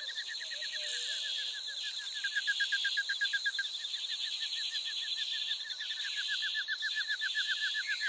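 Outdoor nature ambience: a fast, even run of short high chirps, about eight a second, over a steady high-pitched buzz. The chirping is loudest a couple of seconds in and again near the end.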